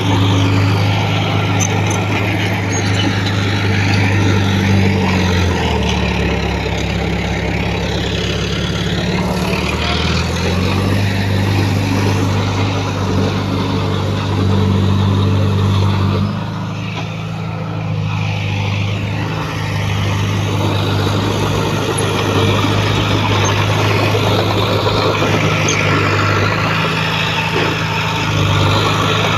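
Heavy diesel engine of earthmoving equipment running steadily under load. Its pitch drops for a few seconds about six seconds in, and it eases off briefly a little past halfway.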